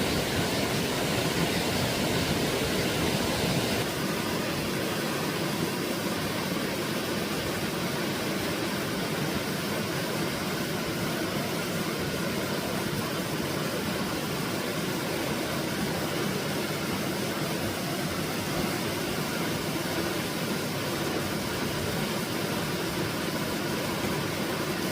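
Steady rushing of stream water, a little quieter from about four seconds in.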